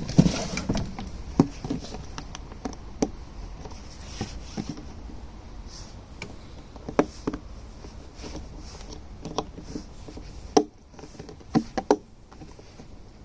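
Scattered knocks, clicks and taps of parts and tools being handled during an oil change, with a brief cluster of rustling knocks at the start and sharper single knocks now and then.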